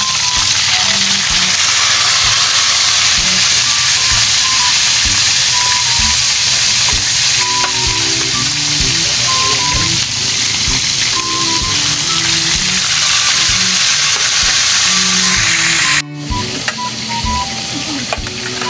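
Small whole fish deep-frying in hot oil in a steel wok, a steady loud sizzle, under background music. About sixteen seconds in the sizzle drops off suddenly.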